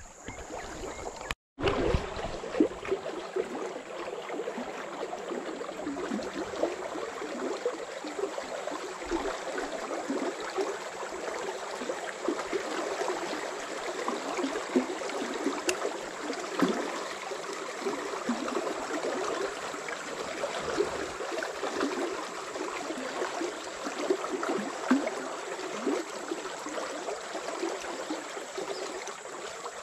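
River water running and gurgling steadily. The sound cuts out completely for a moment about a second and a half in.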